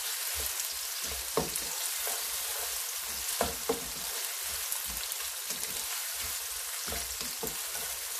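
Sliced onions sizzling steadily in hot oil in a nonstick pan, early in frying them to golden brown. A spatula stirs them, scraping and tapping against the pan a few times, most sharply about a second and a half and three and a half seconds in.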